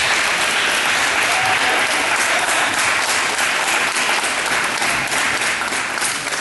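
Audience applauding: a steady crowd of hand claps that begins to ease off near the end.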